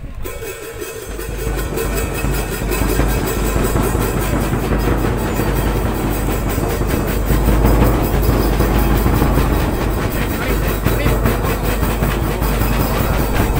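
A band playing, with a fast, steady drum beat, for a flag raising. It comes in suddenly and grows louder over the first two seconds.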